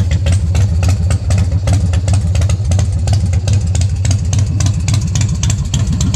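Big Dog Ridgeback chopper's V-twin engine idling steadily: a deep rumble with a fast, even run of exhaust pulses.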